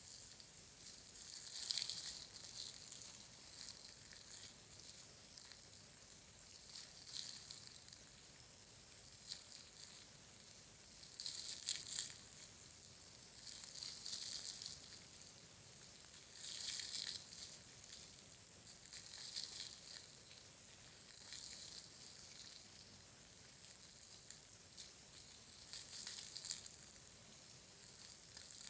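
Close-miked ASMR trigger sounds: soft, hissy rubbing or crinkling swishes, each about a second long, coming every two to three seconds, with a few small clicks between them.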